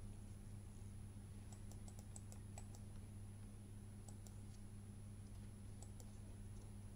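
Near silence: a steady low electrical hum with a faint high whine, and a few faint clicks in small clusters.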